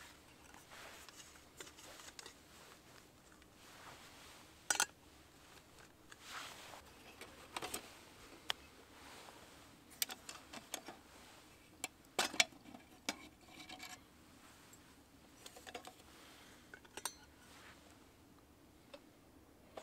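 Small metal camp-cooking gear being handled: irregular light clinks and taps, a few sharper ones with a short metallic ring around the middle.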